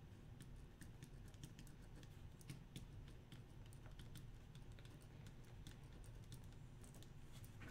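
Faint, irregular clicking of typing on a computer keyboard, a few keystrokes a second.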